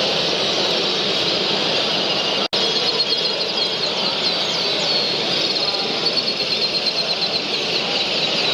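Many canaries chirping and singing together in a dense, steady high din; after a momentary dropout about two and a half seconds in, a bird's rapid high trill stands out above it.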